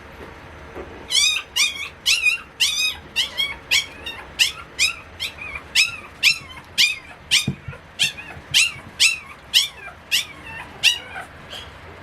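Chihuahua puppy yipping over and over in a run of short, high-pitched calls, about two a second. They start about a second in and stop near the end.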